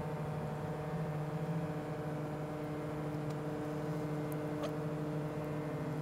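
A steady low electrical hum with a few faint, small clicks of plastic parts being handled as a cooling fan's rotor is fitted back into its frame.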